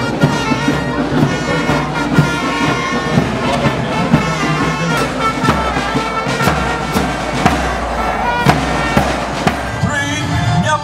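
Loud upbeat music with brass and a steady drum beat.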